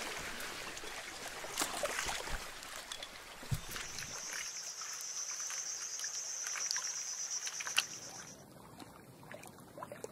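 Water splashing and lapping against a small rowed boat as it moves across a lake, with a high, pulsing buzz for about four seconds in the middle. The sound drops quieter about eight seconds in.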